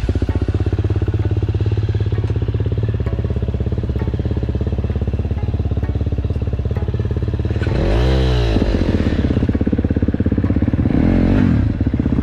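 A 250cc four-stroke motocross bike engine running at a steady pitch, revved up and back down about eight seconds in, with a smaller rev near the end.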